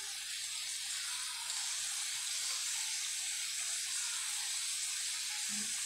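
String beans and ground meat sizzling steadily in a steel wok over a gas flame, stir-fried without any added water.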